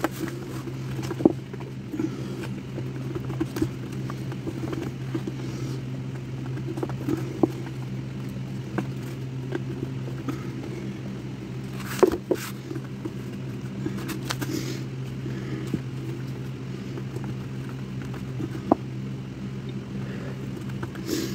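A steady low hum runs throughout, with scattered light clicks and knocks over it; the sharpest knocks come about a second in and about twelve seconds in.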